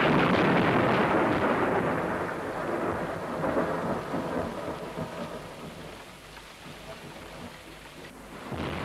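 Heavy monsoon rainstorm with a long roll of thunder, loud at first and dying away over about six seconds. The storm noise swells again just before the end.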